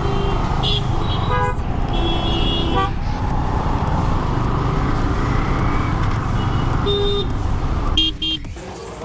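Busy road traffic: a steady rumble of engines with vehicle horns honking several times, one held for nearly a second. Two short horn beeps come near the end, after which the rumble drops quieter.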